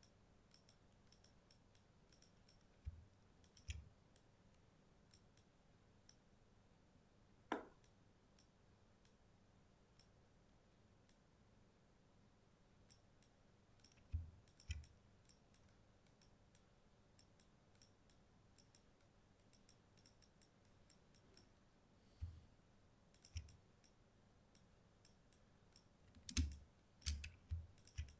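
Near-silent room with faint, scattered clicks from a computer mouse and keyboard, and a handful of louder soft knocks, several of them bunched together near the end.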